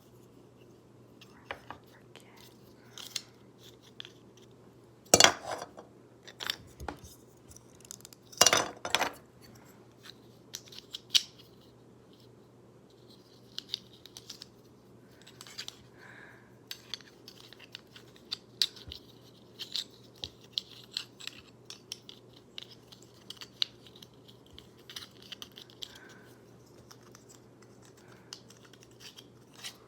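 Small plastic fidget-toy pieces being handled and clicked against each other as they are fitted together: scattered light clicks and rattles, with two louder knocks about five and eight and a half seconds in.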